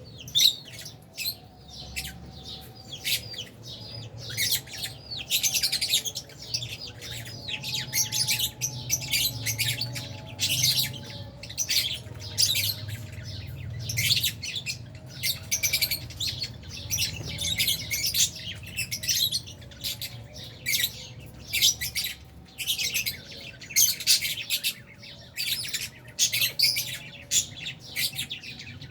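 A colony of lovebirds, albino and Fisher's, chirping and squawking continuously in an aviary, many rapid shrill calls overlapping, with a faint low hum underneath.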